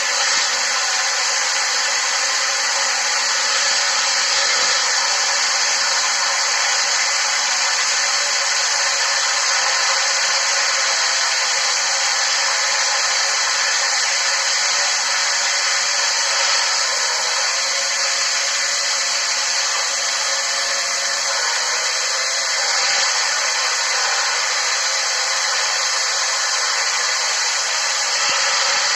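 XTD electric drill running steadily under power, driving a hole saw. The high motor whine holds without a break, with a slight wavering in pitch in the second half.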